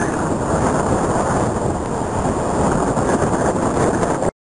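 Wind and rough sea surf: a steady, dense noise, heaviest in the low end, with wind rumbling on the microphone. It cuts off suddenly near the end.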